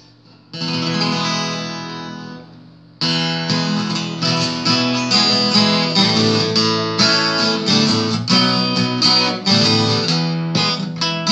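Acoustic guitar: one chord strummed about half a second in and left to ring and fade, then steady rhythmic strumming from about three seconds in, the instrumental opening of a song.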